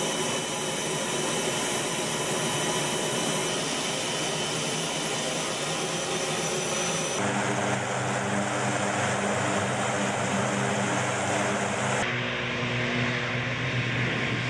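Ilyushin Il-112V's twin Klimov TV7-117ST turboprop engines running steadily as the aircraft taxis, a continuous loud engine noise with deep steady propeller tones. The sound changes abruptly twice, about seven and twelve seconds in, and the deep propeller tones are strongest in the middle stretch.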